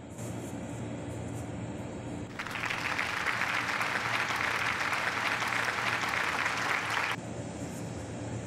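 A loud, even hiss starts about two seconds in and cuts off suddenly after about five seconds, over a low steady hum.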